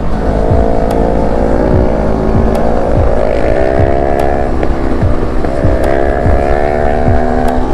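Onboard sound of a Yamaha MT-03's parallel-twin engine accelerating: its pitch climbs in stretches and drops back at the gear changes partway through, over steady wind rumble on the microphone.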